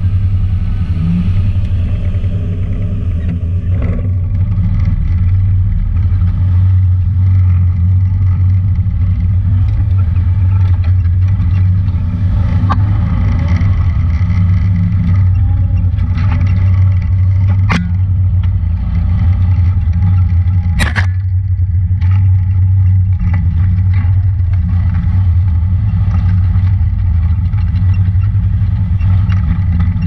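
Honda Talon 1000 side-by-side's parallel-twin engine running steadily under way on a dirt trail. Two sharp knocks come about three seconds apart, around two-thirds of the way through.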